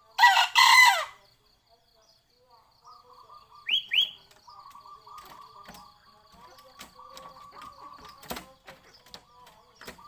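A rooster crows loudly for about a second at the start, ending on a falling pitch. About four seconds in, a small bird gives two quick rising chirps, over the steady trill of an insect.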